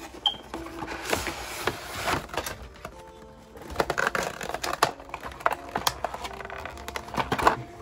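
Cardboard and plastic packaging of a trading-card collection box being opened and handled: irregular crinkles, scrapes and clicks over soft background music with held notes.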